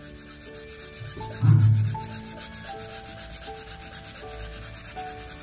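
Felt-tip marker scribbling rapidly back and forth on paper as a shape is coloured in, a fast, even rubbing, with a soft melody playing underneath. A brief low boom about a second and a half in.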